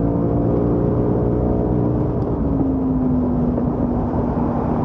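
Ford Mustang Mach 1's 5.0-litre V8 pulling at steady high revs under way, heard from inside the cabin, with tyre and road rumble underneath. Its pitch eases slightly lower about halfway through.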